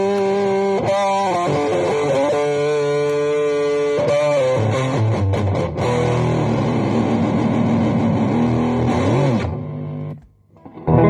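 Epiphone EM-2 Rebel electric guitar played with distortion: held single notes bent up and down, then a busier, lower riff. The playing stops about nine and a half seconds in and starts again at the very end.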